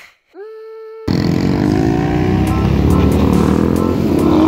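A brief electronic hum tone ends about a second in. Then comes a sudden loud engine sound: a Ford Shelby GT500 Mustang's supercharged V8 pulling away under acceleration, its pitch rising steadily.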